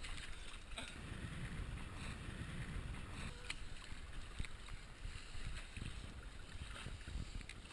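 Wind rumbling on the microphone over choppy water slapping against a small boat's hull, with scattered light ticks and splashes.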